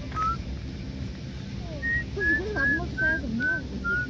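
A bird calling a short whistled note over and over, about two or three notes a second, each run drifting slightly down in pitch. One note comes right at the start and a second run begins about two seconds in. A low murmur runs under the second run, over a steady low rumble.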